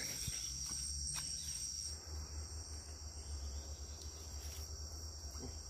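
Steady, high-pitched insect chorus, a continuous shrill drone, over a faint low rumble.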